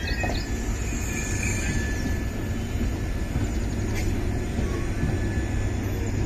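Indian Railways LHB passenger coaches rolling past close by: a steady rumble of wheels on rails.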